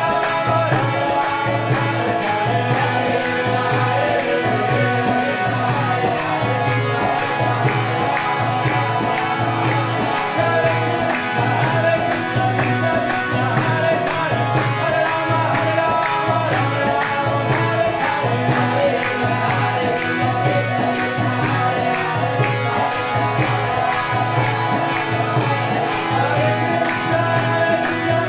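Kirtan: a man chanting a devotional mantra, with a steady metallic jingling beat from hand percussion and a sustained low drone underneath.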